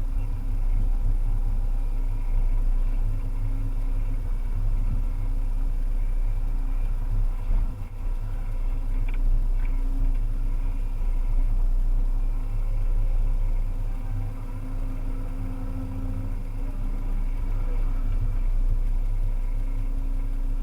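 Volvo EC300EL excavator's diesel engine running steadily while working, a continuous drone that dips briefly about eight seconds in.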